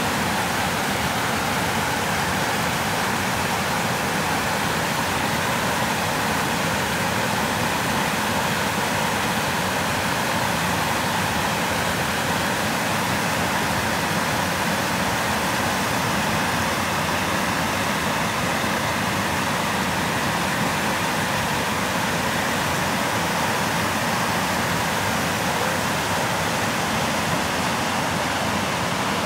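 Water pouring over a low weir and rushing over mossy rocks in a fast creek: a steady, even rush of falling and churning water.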